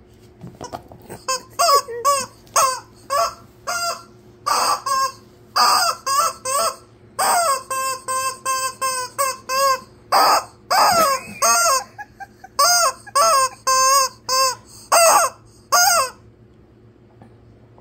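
Squeaky rubber chicken dog toy squawking over and over as it is chomped, about two loud squawks a second, with a couple of longer drawn-out squawks midway, one sliding down in pitch. It stops about a second before the end.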